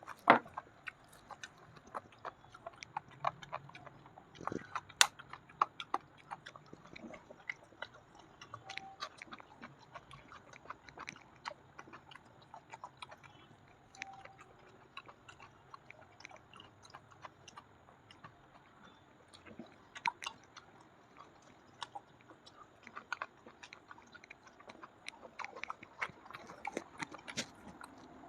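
A person chewing and eating with the mouth close to the microphone: irregular wet smacks and sharp clicks, bunched in spells.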